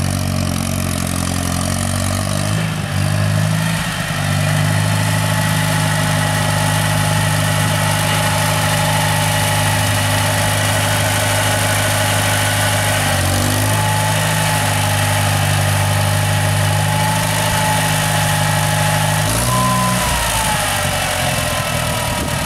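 International Farmall 340 tractor engine running steadily, its speed shifting a few seconds in, about halfway through and again near the end, with a faint whine that rises and then falls near the end.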